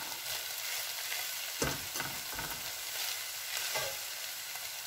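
Steady sizzle of chicken and vegetables frying in a pan as boiled rice is spooned on top, with a spoon knocking twice against a steel strainer.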